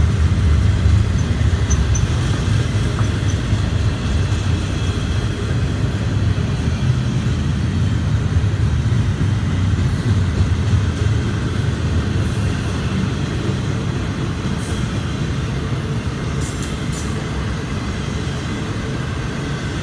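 Double-stack intermodal freight cars rolling past: a steady low rumble of steel wheels on the rails that eases slightly toward the end, with a few faint high squeaks in the second half.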